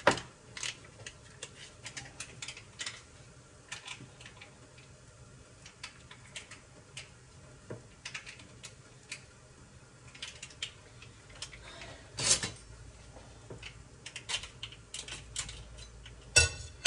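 Food packaging being handled at a kitchen counter: an irregular patter of faint clicks and crinkles, with one louder rustle about twelve seconds in.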